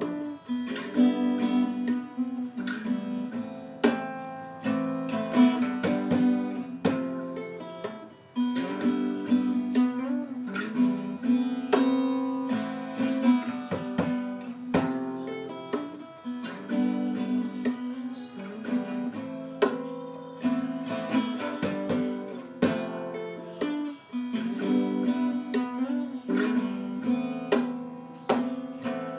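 Acoustic guitar played solo fingerstyle: picked melody notes over chords, mixed with strummed strokes and sharp percussive hits in a steady rhythm.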